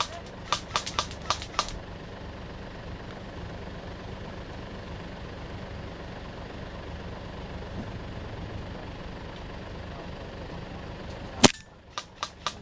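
Airsoft guns firing, a quick string of about six sharp shots in the first two seconds, over a steady low vehicle engine rumble. Near the end comes one loud crack, the rumble drops away, and two or three more shots follow.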